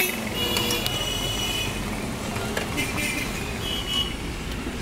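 Busy city street traffic with motor vehicles running and car horns honking: one long honk near the start, then several shorter ones.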